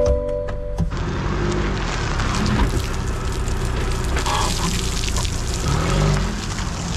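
Rainwater pouring out of a 2022 Chevrolet Silverado's plastic-lined pickup bed and splashing onto gravel as the truck moves, over the truck's engine, whose pitch rises and falls. The water had pooled because the drop-in plastic bed liner has no drain holes. A few short steady tones sound before the water starts, about a second in.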